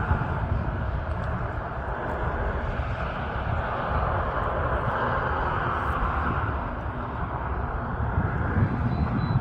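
Highway traffic noise: a steady rush of passing vehicles that swells about halfway through and eases off again.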